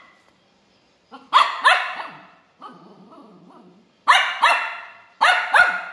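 Puppy barking in quick pairs: two barks about a second and a half in, two more around four seconds, and two near the end, with quieter rough sounds between.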